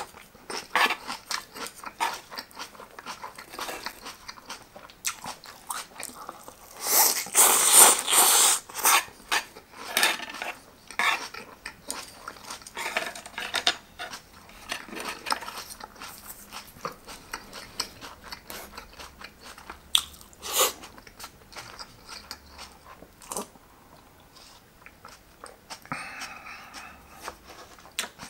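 A person chewing and crunching mouthfuls of raw shredded cabbage close to the microphone, in many short, irregular crunches. The loudest crunching comes about seven to nine seconds in.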